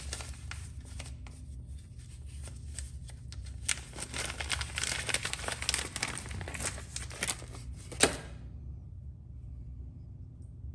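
Metal sockets from a socket set being handled: dense, irregular clicking and rattling for about eight seconds, ending in one sharp click, with a low steady hum underneath.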